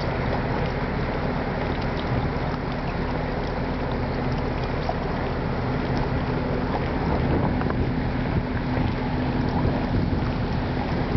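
Steady wind noise on the microphone with a low steady hum underneath, a little louder for a few seconds in the second half.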